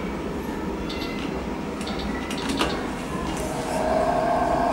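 Metro train running through the station, heard as a steady rumble with a high whine coming in about three and a half seconds in. A few sharp clicks sound over it, the sharpest about two and a half seconds in.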